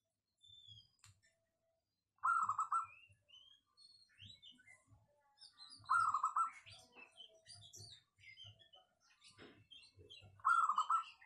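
Caged zebra dove (perkutut) cooing: three short rolling coos, each well under a second, about four seconds apart, with small birds chirping in the background.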